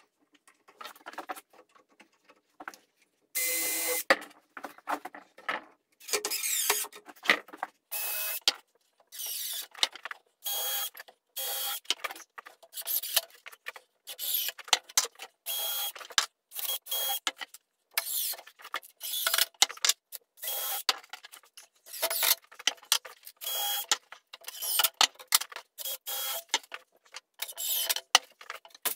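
DeWalt cordless drill/driver run in many short bursts, each under about a second, driving screws, mixed with clatter of tools, clamps and wood being handled.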